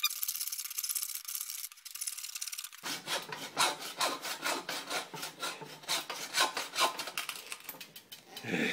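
Hacksaw cutting through a carbon-fibre bicycle crank arm, in quick back-and-forth strokes about two or three a second that stop near the end.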